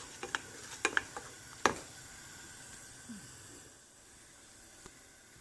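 Milk being stirred in a pan on the stove: the stirring utensil knocks and scrapes against the pan several times in the first couple of seconds, the loudest knock near the two-second mark. After that only a faint steady hiss remains.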